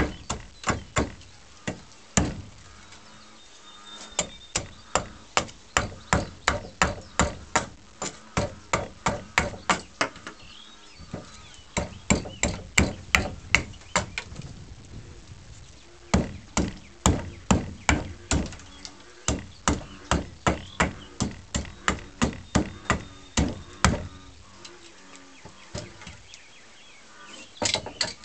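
Side axe hewing a wooden snath grip: sharp chopping strokes at about two a second, in runs broken by short pauses.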